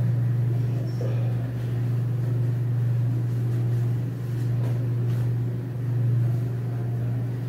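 A steady low hum, with a few faint light rustles or clicks over it.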